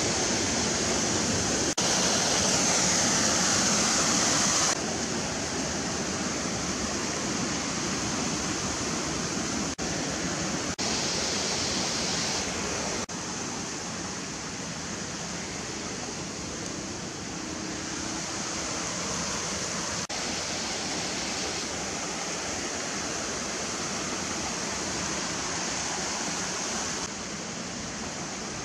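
Steady rushing of fast-flowing water, a dense hiss with no tones in it, changing abruptly in level and tone several times.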